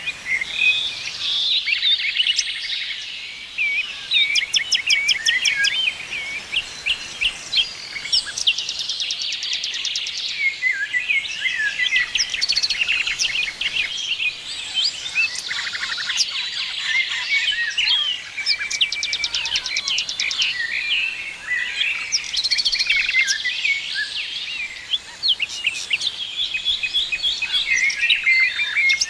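Several songbirds singing and chirping at once in a dense, continuous chorus of quick high chirps, trills and whistled notes, with rapid ticking trills now and then.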